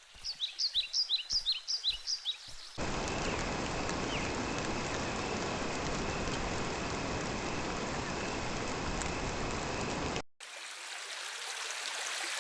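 Nature sleep-sound samples played back one after another. First come quick, repeated bird chirps that fall in pitch, for about the first three seconds. Then a steady rain hiss runs until about ten seconds in, when it cuts off abruptly and running water takes over.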